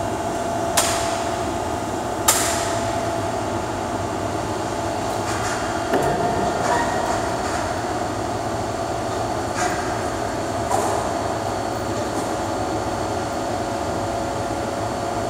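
Steady machinery drone of a steel fabrication shop, broken by several sharp metal clanks, the two loudest in the first few seconds.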